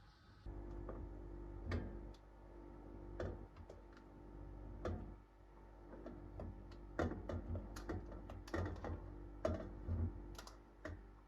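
Light clicks and taps, a few at a time at first and coming quicker over the last few seconds, over a faint steady hum.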